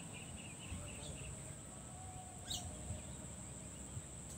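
Outdoor rural ambience: a steady high-pitched insect drone, a few short bird chirps (the clearest, a quick downward sweep, about two and a half seconds in), and a low rumble underneath.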